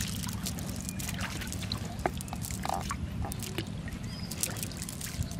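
Water splashing and dripping around a wet cast net as fish are picked out of it by hand in shallow water, in short irregular splashes and drips over a steady low rumble.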